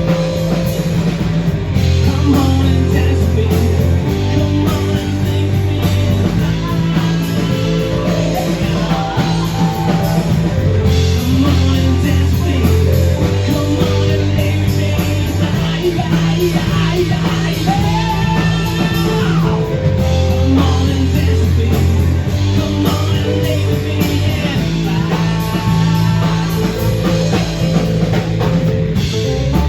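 A live band playing an original rock song, with guitar and a repeating low bass line.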